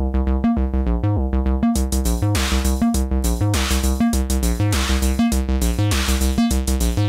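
Acid bassline from a VCO-3340 oscillator through a 303-style VCF303 filter, shaped by an ADSR envelope on a Takaab 2VCA: short repeating bass notes about twice a second. From about two seconds in, a hissy drum-machine hit joins about once a second.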